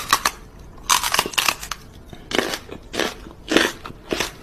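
A dog chewing crunchy food taken from a hand, with a string of sharp crunches about every half second.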